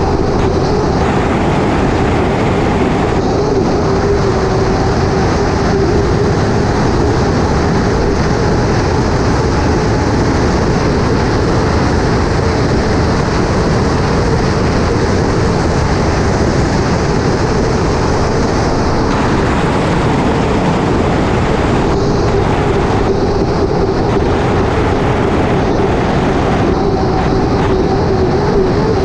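Onboard an unlimited hydroplane running at speed: its turbine engine gives a constant whine over heavy rushing wind and water noise. The whine holds nearly one pitch, wavering only slightly.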